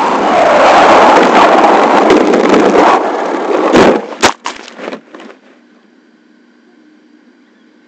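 Onboard sound of a 1/10-scale ACME Trooper 4x4 RC truck driving fast: a loud rushing mix of motor, tyre and wind noise. About four seconds in come a run of sharp knocks and clatters as it tumbles over into the grass. After that it sits still, with only a faint steady hum.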